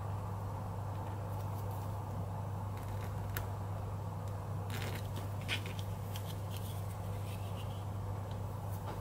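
Faint scratches and light ticks of a needle scribing a line along a ruler on thin vegetable-tanned leather, then the ruler shifted on an acrylic board, over a steady low hum.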